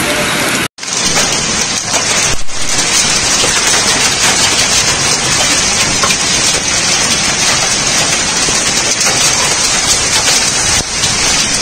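Heavy rain and hail pelting the ground in a dense, steady hiss, broken by a brief dropout under a second in.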